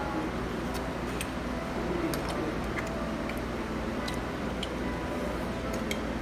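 Metal spoon clinking and scraping against ceramic dishes while scooping fried rice, a few light, irregular clicks over a steady background hum.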